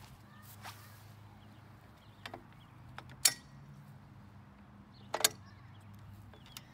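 A few short, sharp metal clinks as the umbrella frame's hinge parts and bolt are handled, the two loudest about three and five seconds in, over a steady low hum.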